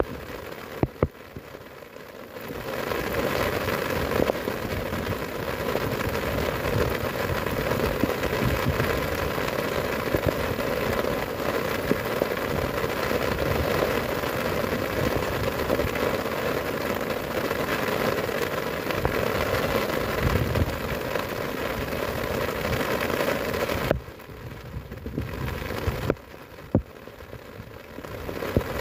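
Heavy rain falling steadily on the grass, with a few sharp knocks. The rain noise drops away abruptly for a couple of seconds near the start and again near the end.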